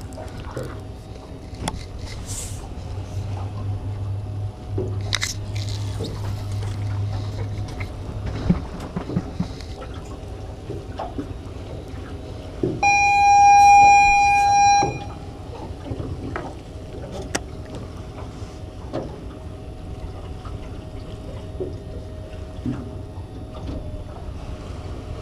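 Ambience aboard a small aluminium boat: scattered clicks and knocks of gear on the deck and a low hum in the first several seconds. Near the middle comes a single steady, high-pitched horn blast of about two seconds, the loudest sound.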